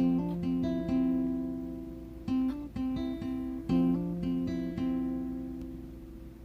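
Background music: a solo acoustic guitar playing plucked notes and chords, each ringing out and fading, with no beat behind it.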